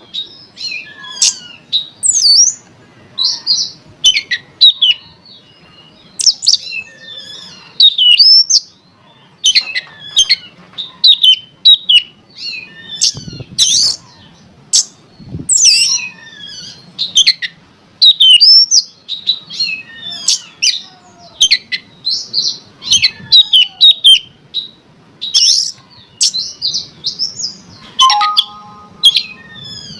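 Oriental magpie-robin (kacer) singing a loud, fast, varied song of short whistles and chattering notes.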